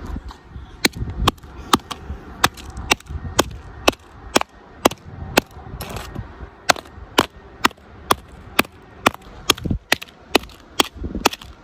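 Repeated hard blows, about two a second, hammering on an iPhone 7 and denting its metal body, with a short pause about halfway through.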